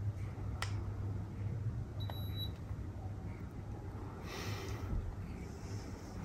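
Infrared forehead thermometer taking a reading: a click, then about two seconds in another click and one short high beep lasting about half a second. A low steady hum runs underneath.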